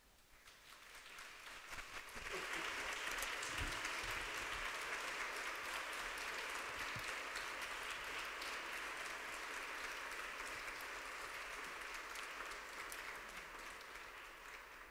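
Audience applauding. It swells over the first two seconds, holds steady, and dies away near the end.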